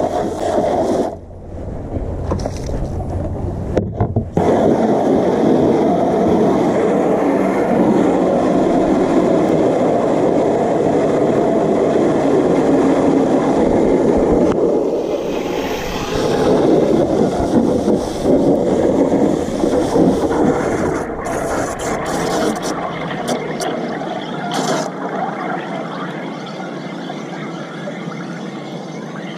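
Water spraying from a garden hose nozzle into a shallow plastic tub, a steady rushing splash that cuts out briefly twice in the first few seconds and grows quieter toward the end.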